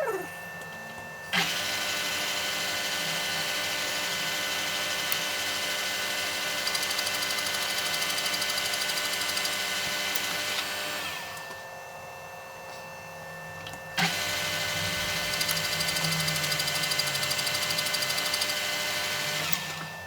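Machine tool taking the last boring cut in the engine's front oil-seal bore. It switches on with a clunk about a second in and runs steadily for about ten seconds before winding down. It switches on again with a clunk about two-thirds of the way in and runs until it spins down near the end.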